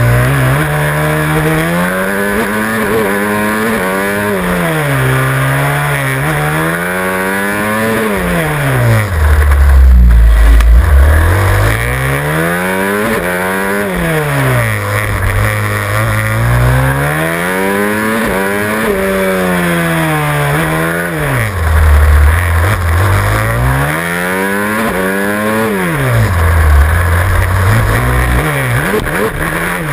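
Supermoto racing motorcycle's single-cylinder engine heard on board, revving up and dropping back again and again as the bike accelerates out of corners and brakes for the next, about every two to three seconds. Twice, roughly a third of the way in and again about two-thirds through, the revs fall low into a heavy rumble.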